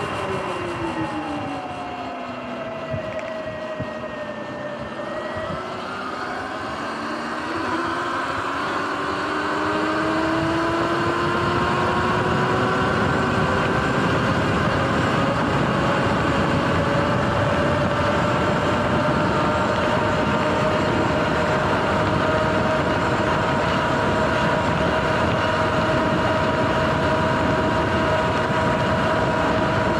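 Sur-Ron electric dirt bike's motor and drivetrain whining, falling in pitch as the bike slows over the first few seconds, then rising as it picks up speed and holding a steady pitch at cruising speed. Wind and tyre roar underneath grow louder as the speed rises.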